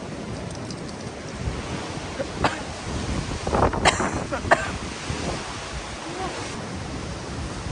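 Strong wind buffeting the microphone as a steady, gusting rumble. A few short clicks and knocks come in the middle.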